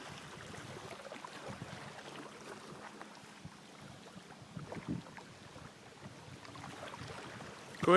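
Faint wind noise on the microphone, with a few light knocks about five seconds in.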